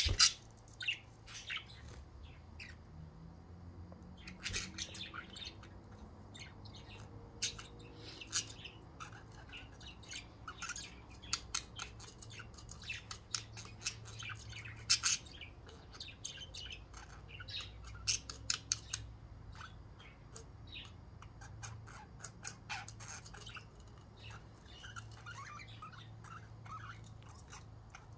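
Budgerigars chirping and squawking, many short calls scattered through, over a faint low hum.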